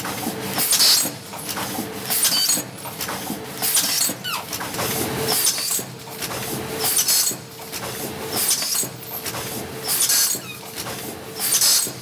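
Automatic double-roll-film pouch packing machine running in its cycle: a sharp noisy stroke about every one and a half seconds over a steady mechanical hum.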